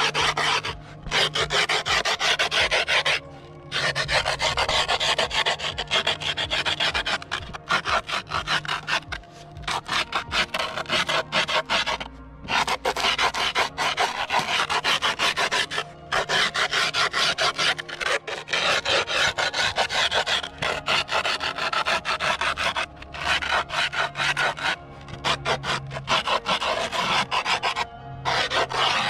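A metal tool rubbed quickly back and forth along the edge of new skateboard griptape over the deck's edge, scoring the grit to mark the cutting line. Rasping scratches come in runs of a few seconds with brief pauses between them.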